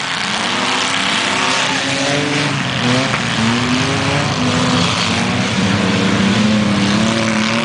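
Several heavyweight-class race cars and trucks racing on a dirt short track, their engines revving up and down, with several engine notes overlapping and rising and falling as the cars accelerate and lift.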